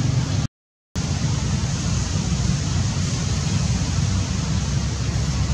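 Steady low rumble and hiss of wind buffeting the microphone, cut by a brief complete dropout about half a second in.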